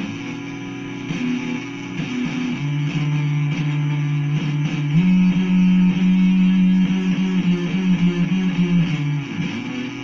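Guitar music playing through a pair of small Philips SPA1260/12 2.0 desktop speakers, recorded through a phone's microphone. Long held low notes come through strongly around 100–200 Hz, but there is almost no deep bass below that, as expected from these small speakers without a subwoofer.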